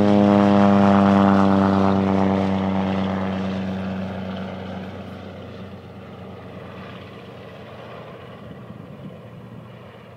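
Antonov An-2 biplane's nine-cylinder radial engine and propeller as the aircraft passes low and climbs away: a loud, steady engine drone, loudest at the start and fading steadily as the plane moves off.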